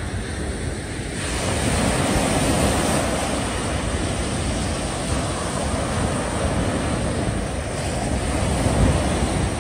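Sea waves washing steadily, with wind buffeting the microphone.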